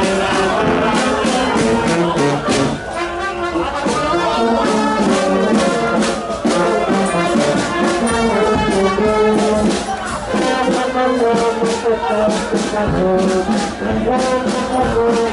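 Street band of brass and reeds (tuba, saxophone, clarinets and trumpet) playing a tune together over steady drum beats.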